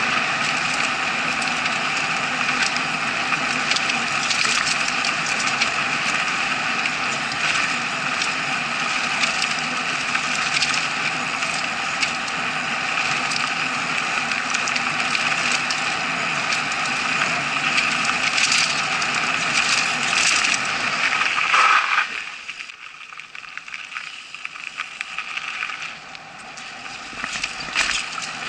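Mountain bike riding fast down a dirt forest trail, heard through an action camera's case: a steady rush of wind and tyre noise with frequent rattles and clatters as the bike goes over bumps. About three-quarters of the way through it drops suddenly to a quieter, patchier rolling sound.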